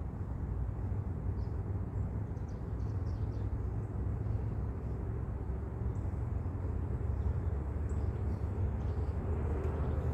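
Steady low outdoor rumble, with a few faint, short high ticks scattered through it.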